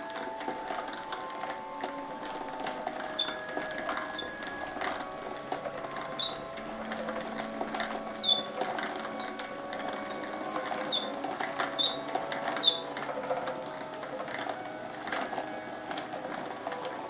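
Hand-cranked plastic yarn ball winder being turned, its gears and pawl clicking and ticking irregularly as yarn winds onto it.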